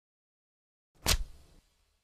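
A single sharp hit about a second in, out of silence, dying away within about half a second.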